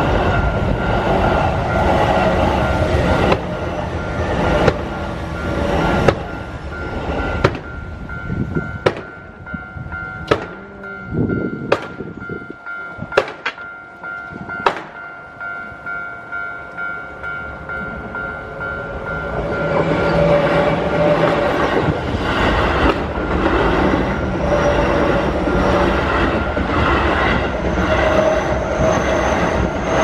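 Electric commuter trains crossing a Japanese level crossing. The first passes with rumble and a regular clatter of wheels over rail joints, fading after about seven seconds into a few separate clicks. About twenty seconds in, a second train comes through with loud rumble and clatter. The crossing's warning bell rings throughout with a steady high tone.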